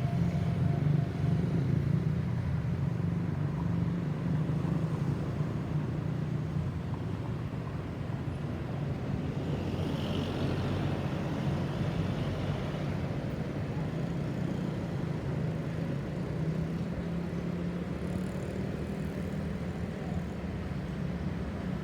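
Steady road traffic noise: vehicle engines running low and even, with no siren sounding.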